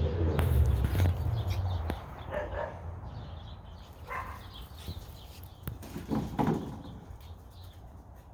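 A dog and a puppy vocalizing: a low rumble for about the first two seconds, then a few short barks at intervals that grow fainter toward the end.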